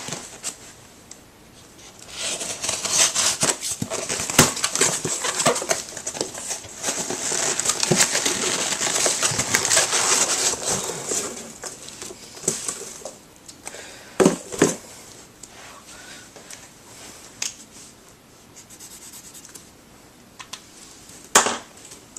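Packaging being torn open and crinkled by hand in a dense stretch of rustling and tearing, followed by a few separate knocks as the contents are handled.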